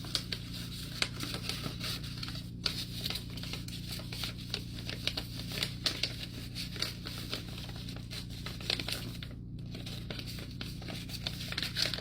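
Paper cash bills being handled: irregular rustling and crinkling with quick snaps of paper, over a steady low hum.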